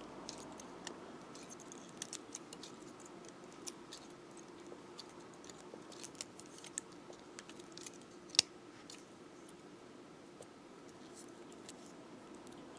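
Faint clicks and light scraping of steel round-nose pliers gripping and twisting thin gold beading wire, with one sharper click about eight seconds in.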